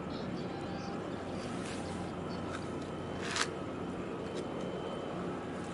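Distant ship engines droning steadily across the harbour water, with a single short sharp click about three and a half seconds in.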